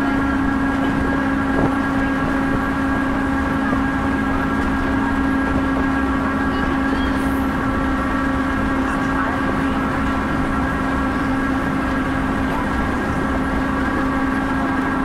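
Moving railcar heard from a passenger window: a steady drone with a constant tone, its speed unchanging, and a single click about two seconds in.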